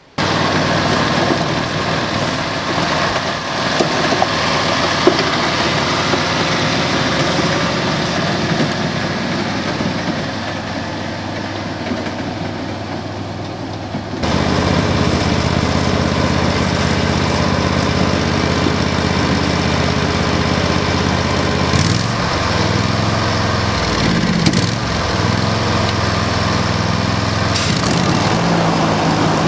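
Ride-on mower's Briggs & Stratton Vanguard 16 hp V-twin engine running steadily. About fourteen seconds in the sound changes abruptly to a lower, fuller engine note, which wavers briefly a few times near the end.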